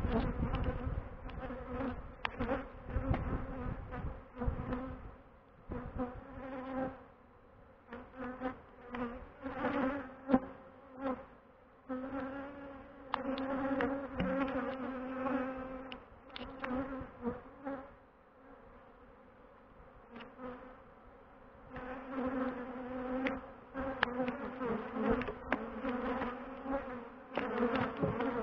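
Honeybees buzzing around an opened hive, stirred up as the frames are lifted out. Single bees fly close past the microphone, so the buzz keeps swelling and fading, with a quieter spell about two-thirds of the way through and a few sharp clicks.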